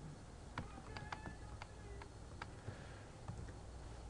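Typing on a computer keyboard: about a dozen faint key clicks at an uneven pace, over a low steady hum.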